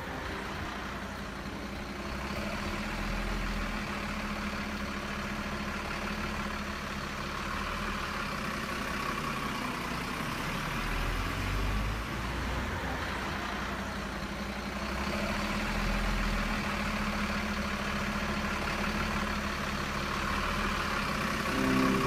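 Radio-controlled Scania 8x8 model dump truck driving, giving a steady engine-like hum. The higher motor noise swells and eases a few times as it moves.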